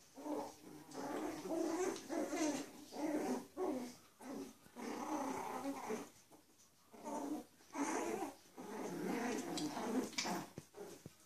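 Six-week-old Bichon Frise puppies growling in play as they wrestle, a series of short growls with brief gaps between them.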